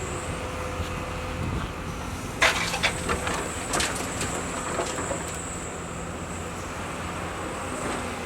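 Excavator's diesel engine running steadily with a high whine, and a cluster of sharp clanks and knocks about two and a half to four seconds in.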